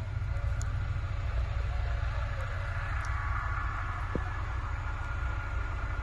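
A steady low rumble with a faint hum over it, engine-like, and a single small click about four seconds in.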